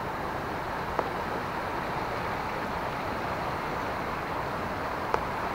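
Steady rushing of river water from below, with two short sharp clicks, one about a second in and one near the end.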